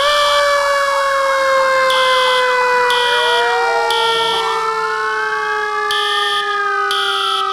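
Several fire-engine sirens sounding together: long slow wails that rise and fall, overlapping, with a fast warbling yelp over the first few seconds. A high beep pulses on and off behind them about once a second.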